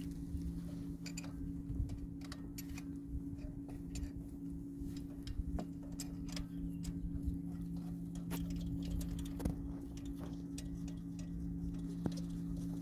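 A ratchet wrench clicking in short, uneven runs as the bolts of a new serpentine belt tensioner are driven in, over a steady low hum.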